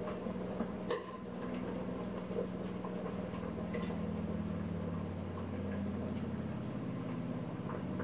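Potato goulash simmering in an uncovered pot: a faint steady bubbling over a low hum, with a few small clicks.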